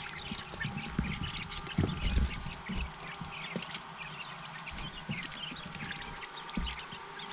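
A brood of baby quail chicks peeping: many short, high chirps overlapping throughout. A few dull knocks come in among them.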